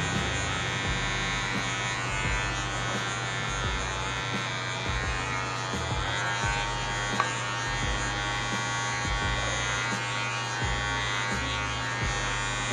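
Cordless electric hair clipper running with a steady buzz as it is worked through short hair on the back of the head, refining a skin fade. A single small click comes about seven seconds in.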